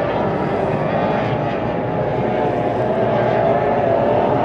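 Outboard engines of several Formula 1 tunnel-hull racing boats running at high revs, heard together as a steady drone of overlapping, slightly wavering engine notes.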